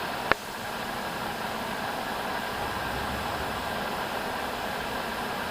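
Steady hum and hiss of background noise, with one sharp click about a third of a second in.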